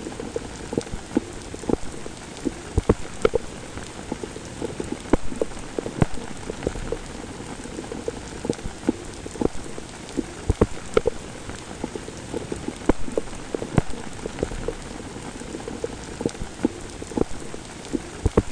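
Heavy rain: a steady hiss with many loud, irregular drops striking a surface close by.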